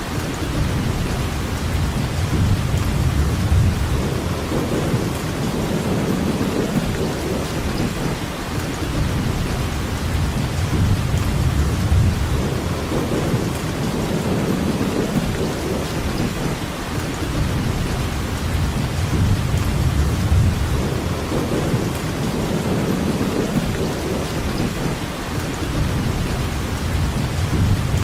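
Steady rainfall, an even hiss with a deep low rumble underneath that swells and eases every few seconds.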